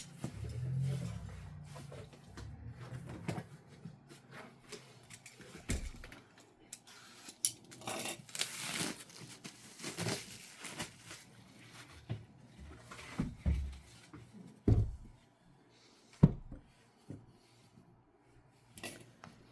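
Unpacking a box of fabric by hand: scattered clicks, taps and knocks, with longer rustles of packaging about eight and ten seconds in.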